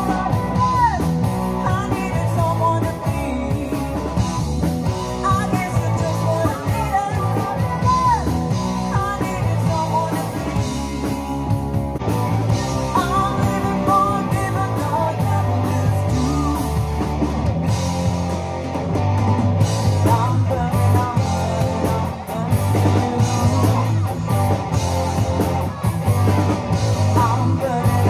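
Live rock band playing: a woman singing lead over electric guitars and drums.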